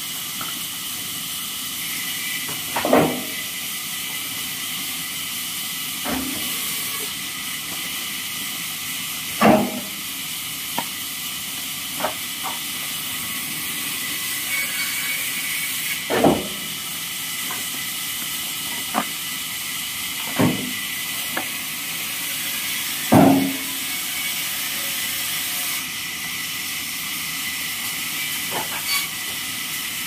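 Wooden offcuts and slabs clattering as they are picked from a pile and tossed onto a heap or truck bed. There are about five louder knocks and several lighter ones at uneven intervals, over a steady high hiss.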